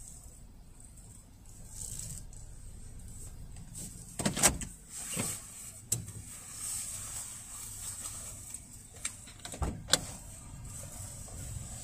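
Automatic gantry car wash running, its brushes working on the car ahead, heard muffled as a steady low hum from inside a waiting car's cabin. A couple of short knocks stand out, about four and ten seconds in.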